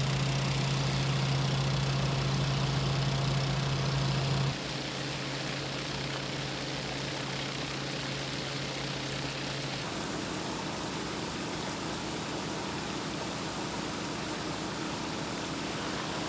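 An engine running steadily: a low, even hum over a wide hiss. The sound drops sharply about four and a half seconds in, and the hum fades out near ten seconds, leaving a steady rushing noise.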